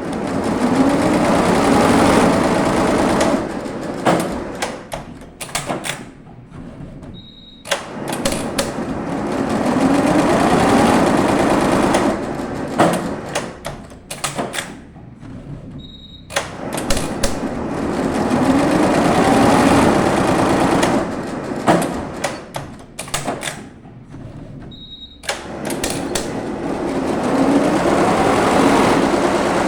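Embroidery machine stitching in repeating cycles of about nine seconds. Each cycle starts with a short high beep, then the motor speeds up with a rising whine and runs for a few seconds, then it slows into a spell of separate clicks.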